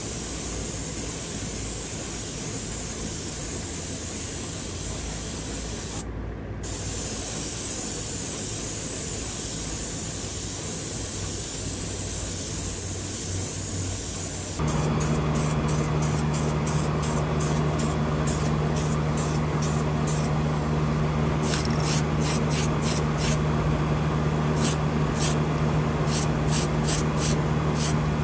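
Airbrush spraying paint onto a small model car body, a steady hiss of air and paint. About halfway through the sound changes suddenly: a steady low hum comes in, and the spray comes in many short, quick bursts.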